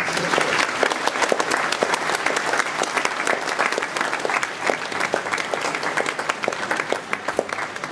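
Audience applauding: many people clapping at once. The clapping breaks out suddenly and thins out near the end.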